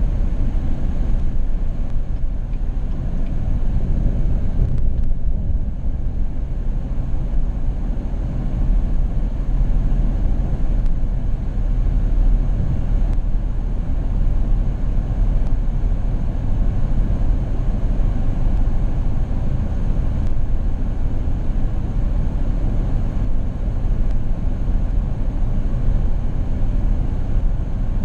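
Steady low engine and road rumble of a moving vehicle, with a low hum and a faint high whine over it.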